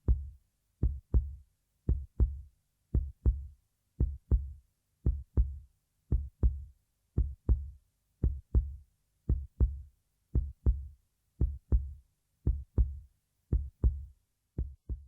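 Heartbeat sound effect: steady lub-dub pairs of deep thumps, about one beat a second, the last beat's second thump weaker just before it stops near the end.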